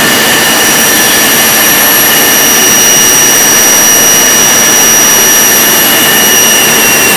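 CNC router spindle running at high speed while machining the edge of an MDF panel: a loud, steady high whine over an even rushing noise.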